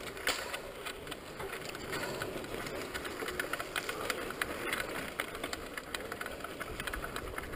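Scattered small clicks and rattles from a carbon mountain bike's saddle and seatpost being worked by hand, over a faint steady background noise. The saddle clamp is broken.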